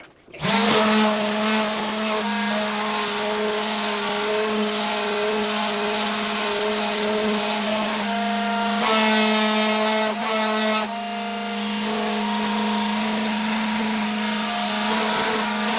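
An engine or motor starts suddenly, then runs steadily at one speed: a constant hum with a fixed pitch and a slight change around the middle.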